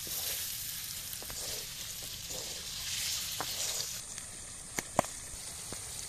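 Peeled boiled eggs and chillies sizzling in hot oil in a wok, stirred with a wooden spatula that scrapes the pan about once a second. After about four seconds the sizzle drops lower and a couple of sharp clicks sound near the end.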